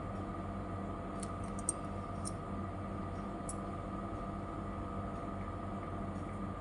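Faint small clicks from fingers handling a plastic hair clip and glue tube while pressing a stone into place, a few between one and three and a half seconds in, the loudest near two seconds. Under them runs a steady background hum.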